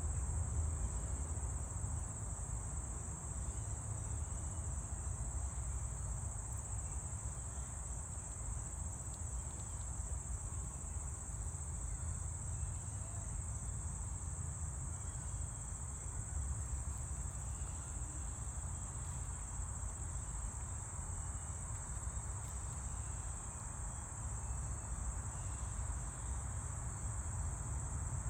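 Steady, high-pitched chorus of insects trilling without a break, over a continuous low rumble.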